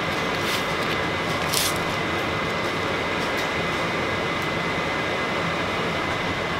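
Steady background hiss with a thin, faint high whine, like a fan or air conditioner running, with two brief light rustles about half a second and a second and a half in.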